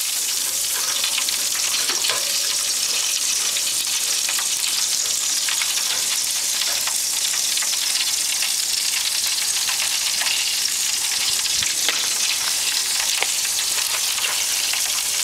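Steady sizzling hiss from pork ribs grilling over hardwood lump charcoal, with scattered small crackles and pops.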